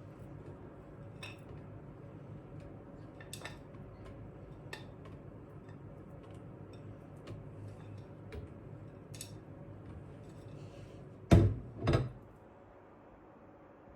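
Kitchenware being handled: scattered light clinks and taps over a low steady hum, then two loud knocks in quick succession near the end, after which the hum falls away.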